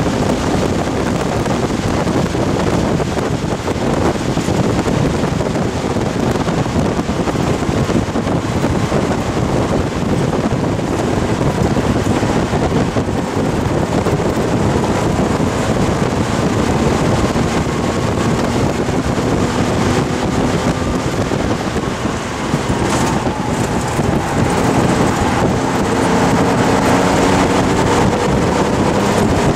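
1971 Porsche 911T's air-cooled flat-six engine running hard at racing speed, heard from inside the cabin with heavy wind noise. About three-quarters through the sound briefly drops, and then the engine's pitch dips and climbs again.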